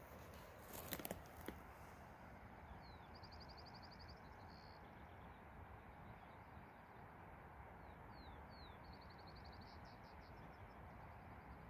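A small songbird singing two phrases, each a couple of quick down-slurred notes followed by a fast, high trill, over a faint steady outdoor hush. A few sharp clicks sound about a second in.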